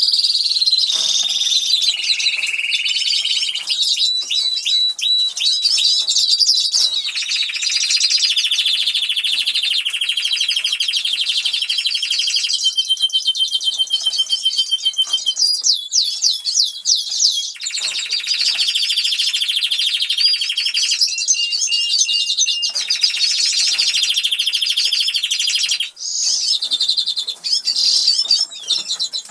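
Canaries singing: one long, loud song made of fast trills and rolls, each phrase a few seconds long and then switching to another pitch and speed, with a short break near the end.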